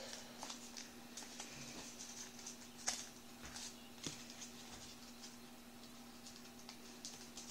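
Soft crinkling and crackling of white paper as fingers fold and pinch a partly finished origami rat: a scatter of small crackles, with sharper ones about three and four seconds in, over a faint steady hum.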